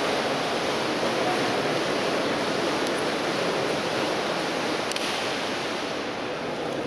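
Steady wash of indoor swimming-pool noise during a backstroke race: water splashing and churning, blended with the general hubbub of the pool hall.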